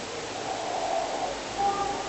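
A person snoring: one snore swells about half a second in and fades, then a brief whistle-like note sounds near the end, over a steady hiss.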